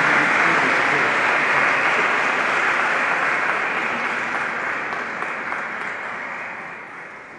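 Audience applauding, the clapping dying away gradually.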